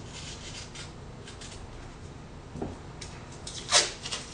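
Paper crinkling and rustling, a soft knock, then near the end a short sharp rip of masking tape being pulled off the roll.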